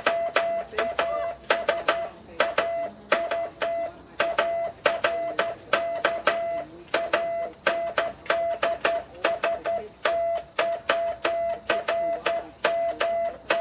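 Morse code sent with a foot-operated key, sounding as a steady mid-pitched beep keyed on and off in quick dots and dashes, several marks a second. Each mark starts and ends with a sharp click.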